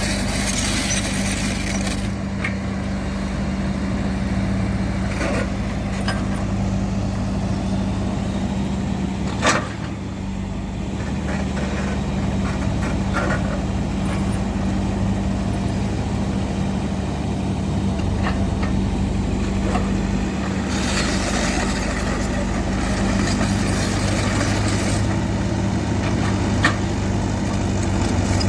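Heavy diesel construction machine running steadily, with a sharp knock about a third of the way in and stretches of louder hiss at the start and about three quarters of the way through.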